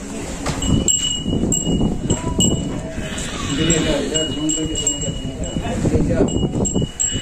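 A large bull is led out of its stall on a rope, with hooves scuffing and shuffling, over a high chime-like ringing that repeats evenly about twice a second.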